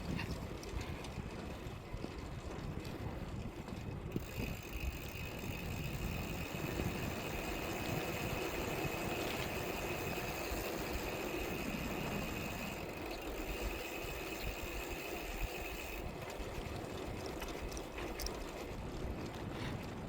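Bicycle ride with wind buffeting the microphone and a steady road rumble. A thin, steady high whine comes in about four seconds in and stops about four seconds before the end.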